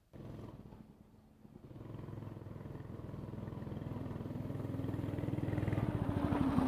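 Small single-cylinder engine of a home-built pit bike running under way. It dips briefly about a second in, then grows steadily louder as the bike rides closer.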